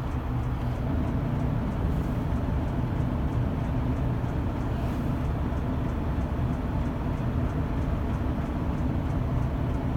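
Steady low outdoor rumble with no siren sounding yet.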